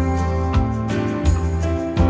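Gentle instrumental background music with a steady beat and bass notes changing about every half second.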